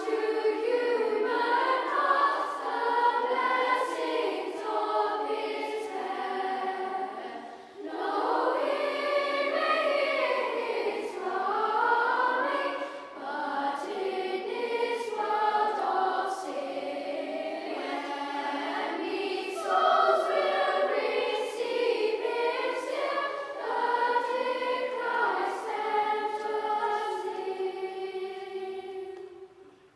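Children's choir singing a carol, with two short breaks for breath about eight and thirteen seconds in. The final note dies away just before the end.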